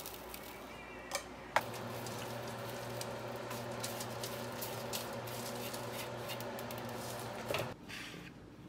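Bread cubes tossed by hand in a plastic bowl, then tipped out onto a parchment-lined baking sheet, with many small pattering clicks and rustles. A steady hum sets in about a second and a half in and stops shortly before the end.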